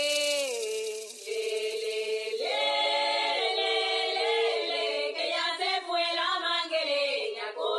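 Music from a dance DJ mix: several voices singing together in close harmony, with no beat or bass under them, as in a vocal breakdown. A bright hiss washes in at the start and fades away within about two seconds.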